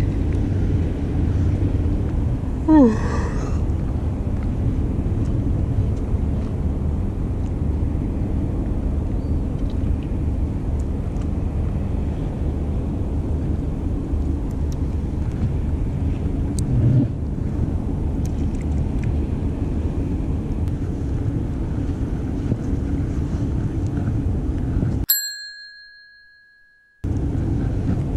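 Steady low rumble of wind and harbour background. About three seconds in comes a short squeal falling in pitch. Near the end the background cuts out under a single bell-like ding that rings for about two seconds.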